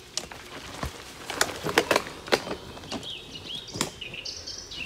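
Scattered sharp clicks and cracks from an e-mountain bike and its rider moving off over a forest path. A bird sings a wavering high song from about three seconds in.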